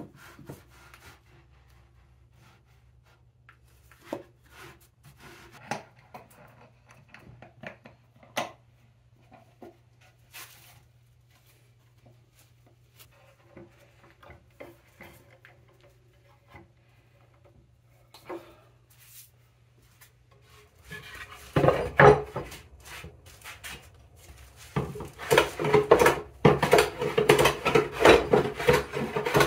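Wooden boards being handled and clamped, with scattered knocks and clicks. About two-thirds of the way through, a hand plane starts cutting across a sassafras board in quick repeated strokes, the loudest part.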